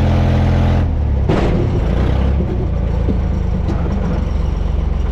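Diesel engine of an old Case backhoe working hard under load as its loader pushes rocks, heard from the open cab; the engine note drops about a second in, with a brief clatter.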